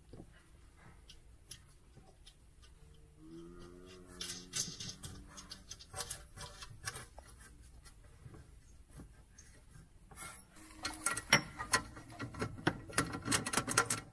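Nuts and bolts being handled at a diesel heater's metal mounting plate: scattered light metallic clicks and scrapes, turning into a quick run of clinking and rattling in the last few seconds. A short pitched tone sounds about three seconds in.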